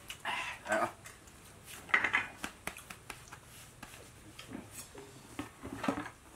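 A handful of separate knocks, scrapes and clinks as a stainless steel bowl and a plate with a spoon are handled and set on the plastic lid of a bucket.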